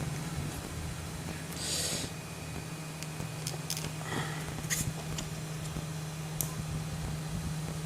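Small sharp clicks and a brief scrape of tools and plastic parts being handled while a phone is taken apart, over a steady low electrical hum.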